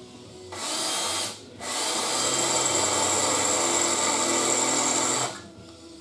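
Electric drill running against a sheet-steel inner rocker panel: a short burst, a brief stop, then a longer steady run of nearly four seconds with a constant high whine. The bit is dull and not cutting well.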